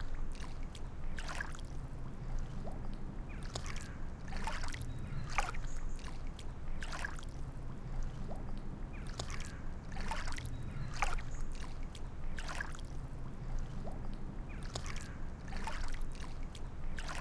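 Water splashing and lapping in short splashes about every second or so, over a low steady rumble.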